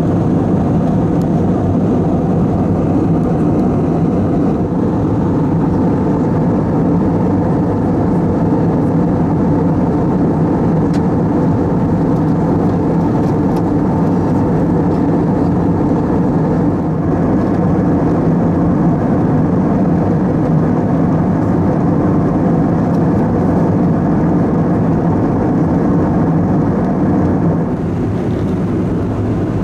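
Steady cabin roar of an Airbus A320-214 in cruise flight: the CFM56 engines' hum and the rush of air over the fuselage, even and unchanging, easing off slightly near the end.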